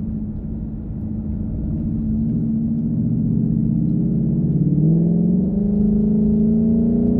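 2019 Ford Mustang GT's 5.0-litre V8 heard from inside the cabin through its AWE Touring cat-back exhaust, in track mode: the engine pulls with rising pitch, drops in pitch at an upshift about five seconds in, then climbs again under acceleration.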